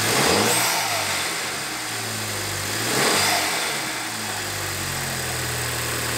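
MK5 Volkswagen GTI's turbocharged 2.0 FSI four-cylinder idling, blipped twice about three seconds apart; each rev rises and drops back to idle with a whoosh of air through the open cone-filter intake and turbo piping.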